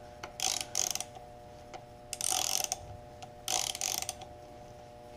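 Hand ratchet with a 6 mm Allen bit clicking in three short runs of about half a second each. It is backing out the bolt that holds the brake hose to a motorcycle's front caliper.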